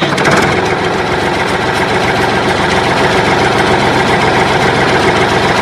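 Tractor engine running steadily at idle, with a fast, even firing beat.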